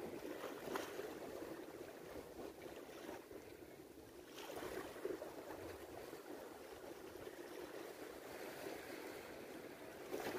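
Sea water washing and lapping against shore rocks, a steady low wash without a beat.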